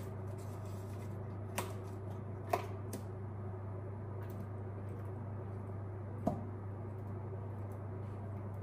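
A steady low hum in a kitchen while eggs cook in a pan, with a few light clicks and knocks about one and a half, two and a half, three and six seconds in.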